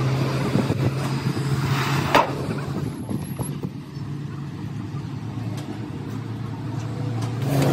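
An engine running steadily with a low, even hum, and a sharp knock about two seconds in.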